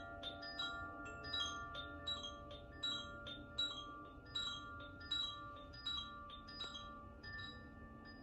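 Healing chimes struck one note after another, about two strikes a second, each bright tone ringing on and overlapping the next. The playing slowly grows quieter.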